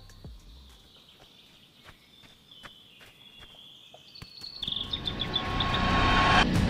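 Film sound effect: faint high insect-like tones with a few clicks, then a rising rush of noise that swells loud over the last two seconds and cuts off suddenly near the end.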